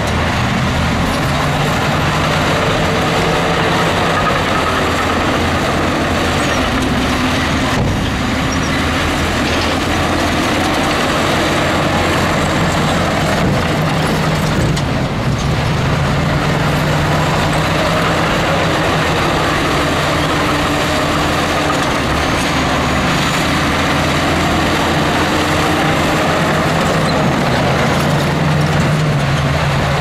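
Heavy construction machine's diesel engine running steadily under load, its pitch drifting up and down a little.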